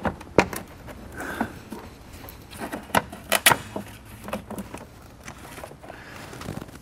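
Scattered clicks and knocks of hand work, intake parts and tools being handled and fitted.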